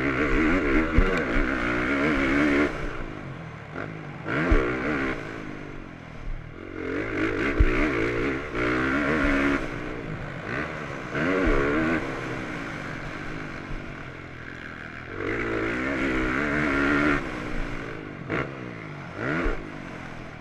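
Motocross bike engine heard from the onboard camera. The throttle is opened hard in stretches of one to three seconds and shut off between them, and the pitch rises and falls with the revs. Occasional sharp thumps come from the bike over the rough track.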